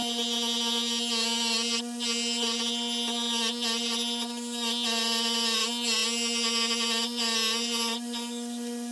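A DEFU electric key-duplicating machine runs with a steady hum. From about a second in, its cutter wheel grinds a key blank with an uneven rasp that breaks off briefly a few times, and the grinding stops about a second before the end.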